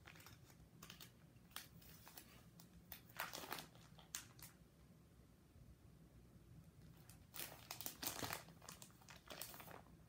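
Plastic card-sleeve pages in a ring binder crinkling and rustling as they are handled and turned, in short bursts, loudest about three seconds in and again around seven to eight seconds in.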